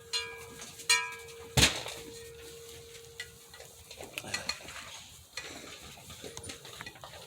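Metal feed pan clanking and ringing as it is knocked, with a heavier knock about one and a half seconds in and a ring that dies away; after that, lighter scattered clicks and scraping against the pan.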